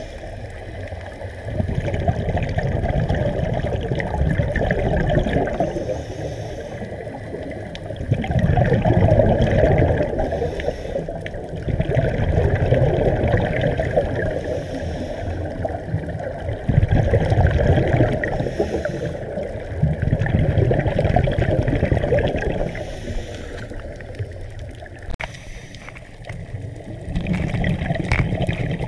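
Moving water, a rushing, gurgling wash that swells and eases every few seconds.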